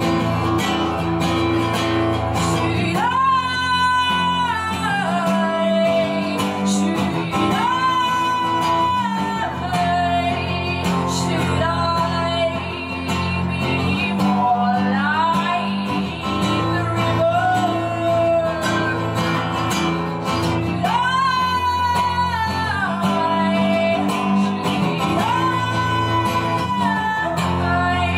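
A woman singing long, sliding held notes over a strummed acoustic guitar.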